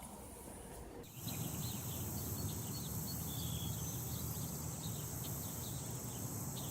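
Outdoor ambience starting abruptly about a second in: a steady high insect-like buzz with many short bird chirps over it and a low rumble underneath.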